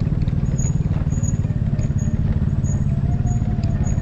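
Motorcycle engine running steadily under way, a continuous low rumble.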